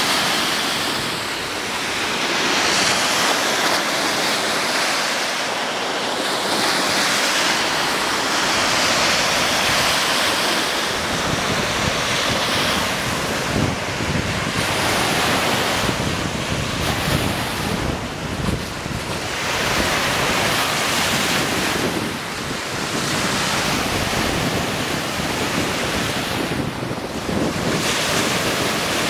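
Small lake waves breaking and washing up the sand in steady, swelling surges, with wind buffeting the microphone, heavier from about ten seconds in.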